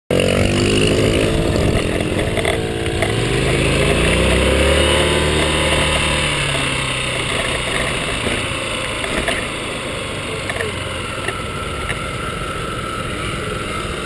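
Small motorbike engine revving, its pitch rising and falling over the first six seconds. After that comes rough, gusty wind noise on the microphone as the bike rides on, with the engine lower beneath it.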